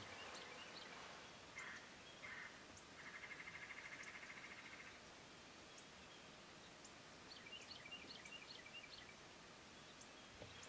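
Quiet outdoor ambience with songbirds calling: two short calls, then a rapid trill lasting about two seconds, and a string of short chirps near the end.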